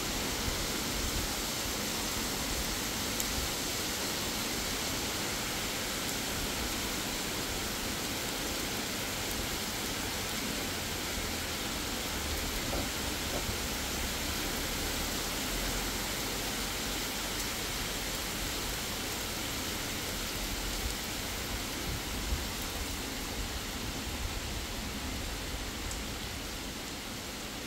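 Heavy rain pouring down, a steady even hiss of the downpour, easing slightly near the end.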